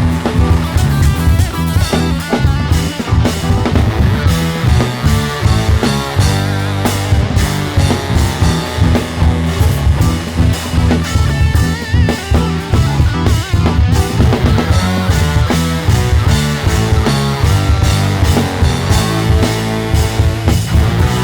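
Live rock band playing an instrumental passage: drum kit and electric guitar over a heavy bass line, with no singing.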